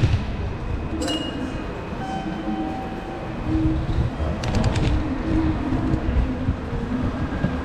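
Yurikamome rubber-tyred automated train running: a steady low rumble with faint steady tones over it and a couple of brief clicks.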